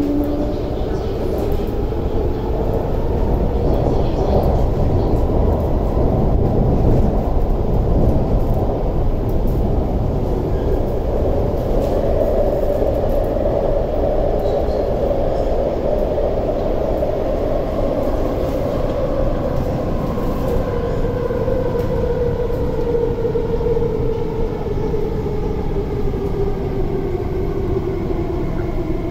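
Cabin sound of an MTR SP1900 electric multiple unit running underground: a steady rumble of wheels on rail with the traction motors' whine, which climbs in pitch over the first half and then falls steadily as the train brakes into the station.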